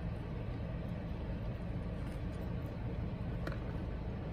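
Steady low rumble of a car running while parked, heard inside the cabin, with a single faint click about three and a half seconds in.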